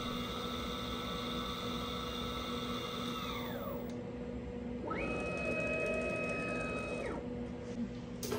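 CNC router spindle whining as it spins, winding down about three seconds in, then spinning up again about five seconds in, holding for a couple of seconds and winding down near seven seconds, while the bit sits at the touchless tool probe. A steady low hum runs underneath, and there is a sharp click near the end.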